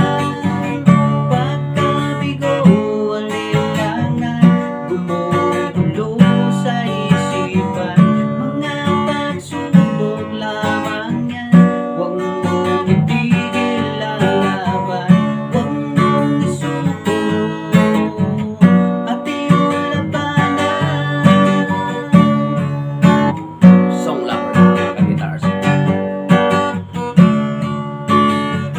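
Steel-string acoustic guitar strummed in a steady rhythm, with a man's voice singing along at times.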